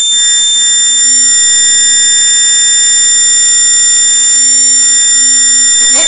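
Piezo buzzer on an ARM7 accident-alarm circuit board sounding the accident alarm: one continuous, steady, loud high-pitched tone.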